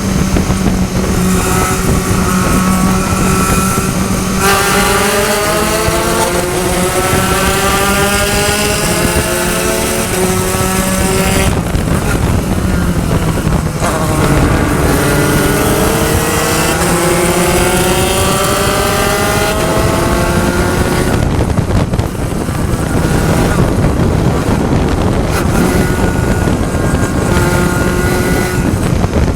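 Spec Racer Ford Gen3 race car engine at full throttle, its pitch rising through the revs twice and dropping sharply after each climb as the driver lifts or shifts, then held at a steadier pitch near the end.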